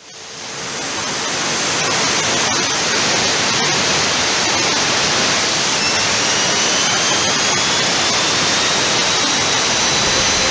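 Compressed-air blow gun hissing steadily as it blows into a metal cone on a screwdriver. From about six seconds in, a thin whistle joins the hiss and slowly rises in pitch.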